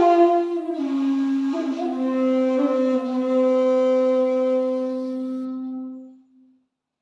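A 2.8 jinashi shakuhachi playing a honkyoku phrase. A breathy note steps down in pitch and settles into one long, low held tone that fades away near the end.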